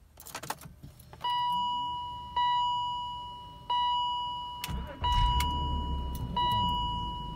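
Keys jangle in the ignition of a 2001 BMW 530i, then its dashboard warning chime dings five times, about one ding every second and a half. About five seconds in the 3.0-litre inline-six cranks briefly and catches, settling into a steady idle under the chimes: a quick, clean start, which the owner calls the best startup the car has had.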